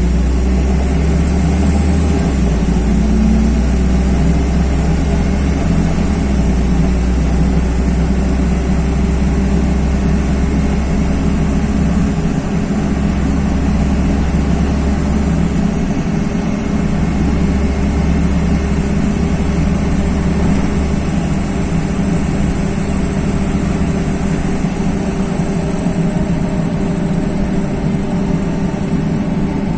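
LiAZ-5292.21 city bus driving, heard from inside the passenger cabin: a steady low engine drone with road rumble, its strength shifting slightly a few times.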